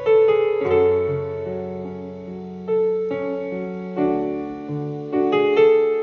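Piano playing a slow, soft passage: single notes and chords struck about once a second and left to fade over held bass notes.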